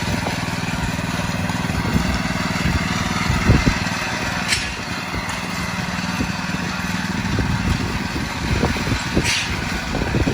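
Petrol-engined power trowel running steadily while it floats a fresh concrete slab.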